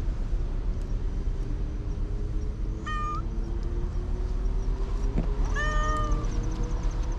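Domestic cat meowing twice: a short meow about three seconds in and a longer one near six seconds, over a steady low rumble of road traffic.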